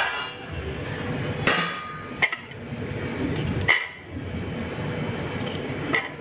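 Kitchen knife striking a stainless steel plate while cutting aloe vera leaves: about five sharp, ringing clinks at irregular intervals.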